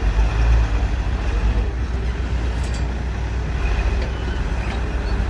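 Excavator diesel engines running steadily while digging and loading dump trucks: a continuous low rumble with a couple of faint clicks.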